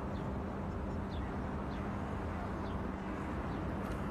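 Steady outdoor background noise with a low hum, and faint short high chirps recurring about twice a second.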